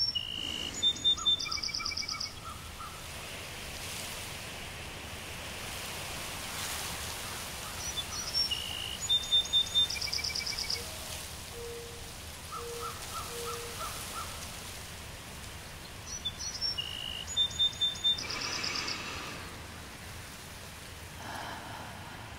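Soft background nature soundscape: a steady outdoor hiss with a cluster of bird-like chirps and trills that recurs about every eight seconds.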